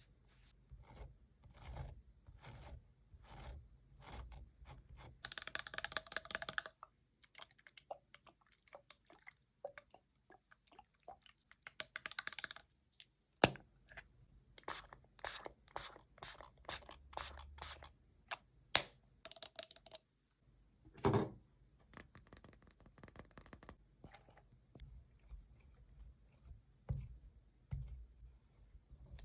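ASMR makeup and skincare tools scratching, scraping and tapping on a melon's rind in a run of short, sharp strokes, with a longer, denser burst of noise about five seconds in.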